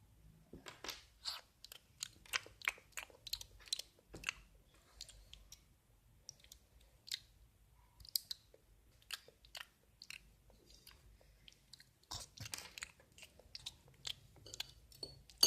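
A person chewing and biting something crunchy, in quick runs of sharp crunches with sparser crunches in between.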